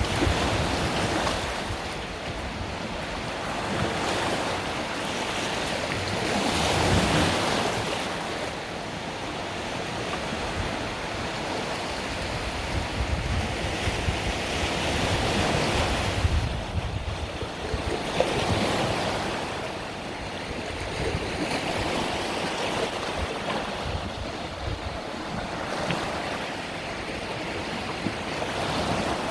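Mediterranean sea waves breaking and washing up the beach, the surf swelling and fading every several seconds, with wind rumbling on the microphone.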